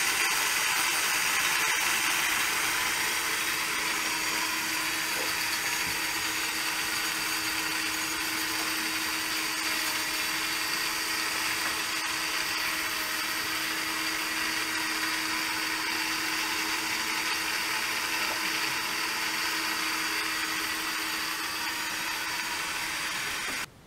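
Rose engine lathe with its motor-driven cutter running steadily, taking a light cut in African blackwood: a steady hum under a hiss. It cuts off abruptly near the end.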